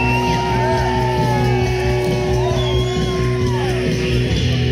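Music playing loudly, with sustained bass notes and voice-like tones sliding up and down in pitch.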